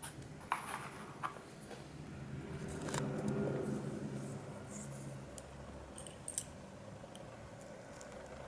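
Light clicks and taps of small metal parts as a VW 1.9 TDI (ALH) diesel injector body and its pieces are handled, with a few sharp clicks including a quick pair a little after six seconds. A low hum swells and fades in the middle.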